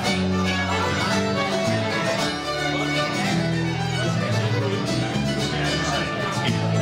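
Live folk music: a fiddle plays a tune with guitar accompaniment.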